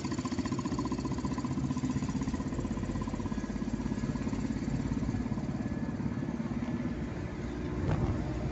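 A car's engine and road noise, heard from inside the cabin while driving at a steady pace. A slight swell comes near the end.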